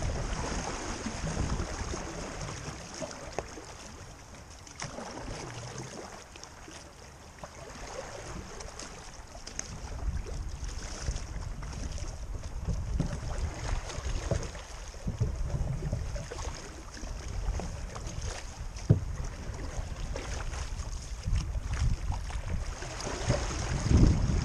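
Water swishing around a solo open canoe as it is paddled along a moving creek, with a few sharp knocks. Wind buffets the microphone in gusts that come and go.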